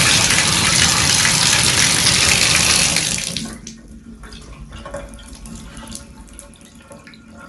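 Water running hard from a newly repaired Pfister single-handle tub faucet. It is shut off about three and a half seconds in, leaving faint dripping and trickling.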